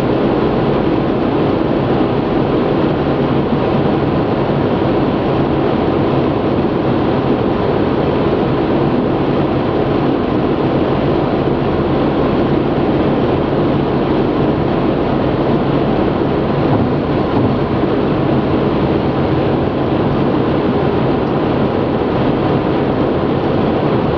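Steady road and tyre noise of a car cruising at motorway speed, heard inside the cabin, with no change through the stretch.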